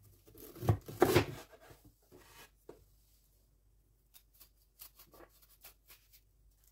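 A kitchen knife cutting zucchini on a plastic cutting board: two thuds about a second in, then faint quick scratching as the blade scrapes the seeds out of a zucchini quarter.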